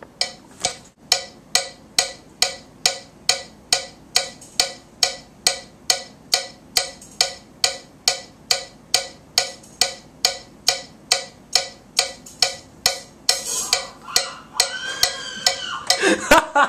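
Drum kit played behind the booth glass, heard as an even, sharp tick about three times a second with little thud, and a brighter burst about 13 seconds in.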